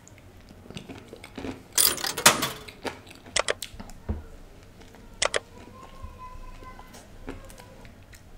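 Close-miked mouth sounds of eating a soft choco-vanilla layer cake: bites and chewing with scattered sharp lip-smacking clicks, the loudest burst about two seconds in.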